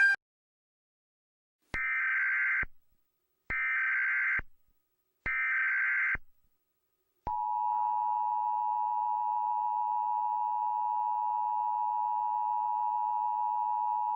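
Emergency Alert System signal: three separate bursts of SAME header data tones, about a second each with short gaps between, then a long steady attention tone starting about seven seconds in.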